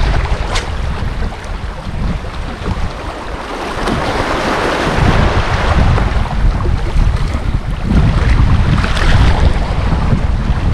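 Wind buffeting the microphone in uneven gusts over small waves washing against a rocky shoreline. A single brief click sounds shortly after the start.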